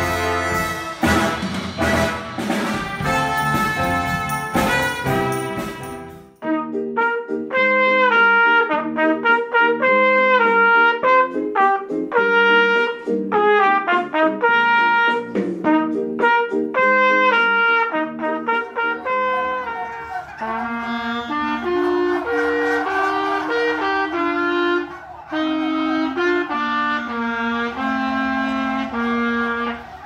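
Student big band playing, brass and saxophones over bass and keyboard, cutting off about six seconds in to a solo trumpet playing a melody of separate, clean notes. About eighteen seconds in it changes again to another trumpet passage over lower held notes.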